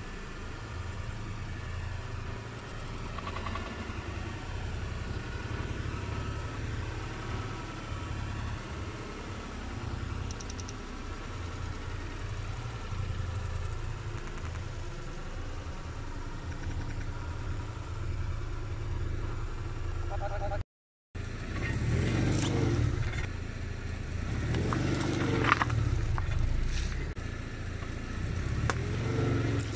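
Car engine running with a steady low rumble. After a cut about two-thirds of the way in it gets louder, with clattering and crackling as the tyres roll over and crush objects.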